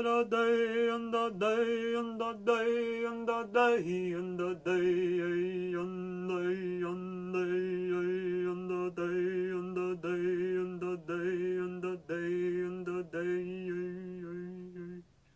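A woman chanting wordlessly in a low voice. She holds one note, drops to a lower note about four seconds in and holds it, then stops just before the end.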